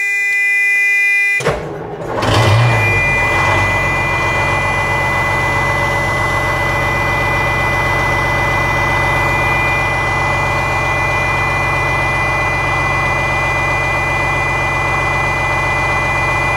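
Low air warning buzzer sounding with the key on; it breaks off as the White 4000's two-stroke Detroit Diesel engine is started about two seconds in and catches. The engine then idles steadily with the low air buzzer still sounding over it, as the truck has not yet built air pressure.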